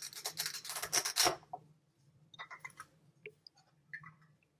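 Light clicking and rustling, dense for the first second and a half, then a few scattered clicks.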